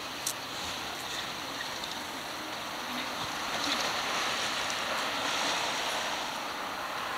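Street traffic noise: a steady rush of road vehicles that swells a few seconds in, with a sharp click just after the start.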